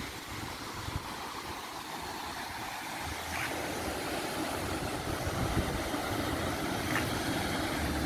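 Steady rushing of a river and waterfall pouring over rocks. It grows a little louder about halfway through.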